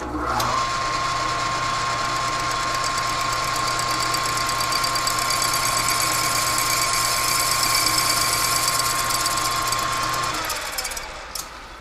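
Metal lathe running with a steady whine and hum as it spins the chuck holding the welded clutch housing. It starts up right at the beginning, runs down and stops about ten seconds in, and a single click follows.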